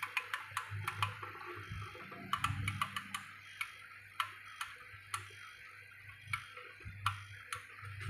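Refrigerator's mechanical defrost timer being wound by hand at its shaft, its gears clicking irregularly a few times a second as it is advanced toward the defrost position.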